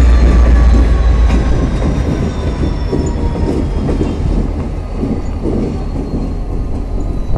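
Diesel locomotives rumbling as they pull along the track, with faint thin high whines that slowly fall in pitch. The heavy low rumble drops back about a second in, and the sound fades as the locomotives draw away.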